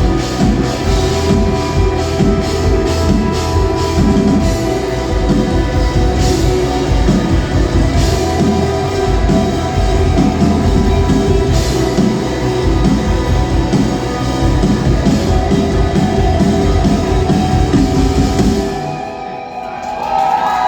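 Rock song playing, with drum kit and guitar over a steady beat. It thins out and drops in level about nineteen seconds in.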